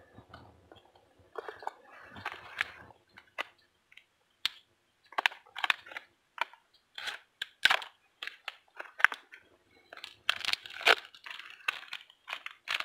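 Plastic packaging of cured bacon ends being cut and torn open with a knife: irregular crinkling and tearing, loudest a little after ten seconds in.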